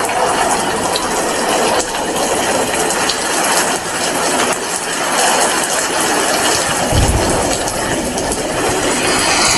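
Steady rain falling: a dense, even hiss with many fine drop ticks, and one brief low thump about seven seconds in.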